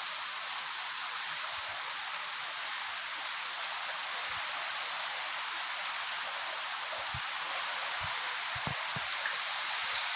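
Heavy rain falling steadily in a thunderstorm, an even hiss, with a few brief low thumps in the second half.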